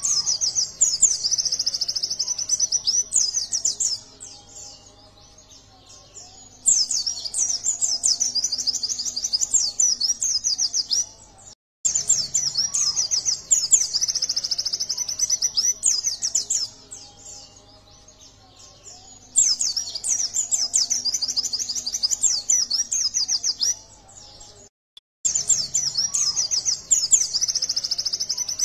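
Caged yellow-breasted white-eye (pleci dada kuning) singing in full voice: rapid, high twittering song in about five bouts of a few seconds each, with short pauses between.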